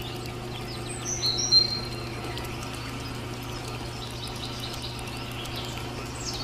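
Small electric motor of a miniature model concrete mixer running with a steady low hum as its drum turns the wet cement mix. A few short bird chirps come about a second in.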